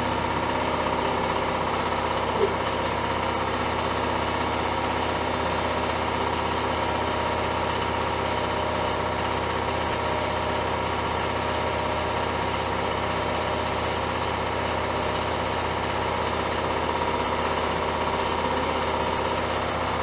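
Hoover Dynamic 1400 front-loading washing machine running mid-cycle: a steady hum with a constant high whine, and a brief tap about two and a half seconds in.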